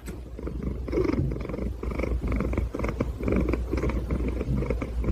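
Domestic cat purring close up: a steady low rumble that swells and fades about once or twice a second with each breath in and out.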